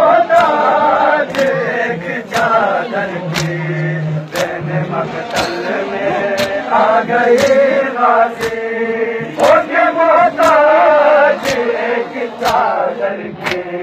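A crowd of men chanting a Muharram lament (noha) together, with regular chest-beating (matam) strikes about once a second.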